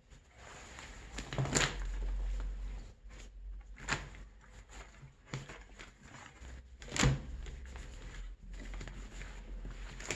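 Crocodile leather hides being lifted, shuffled and laid down on a hard worktable: rustling and scraping, with a few thumps, the loudest about seven seconds in.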